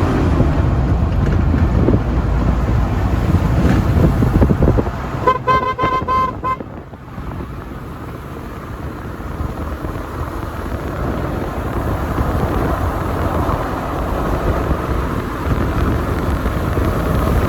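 Low rumble of a moving road vehicle. About five seconds in, a car horn gives a quick string of short beeps, then the rumble drops and slowly builds again.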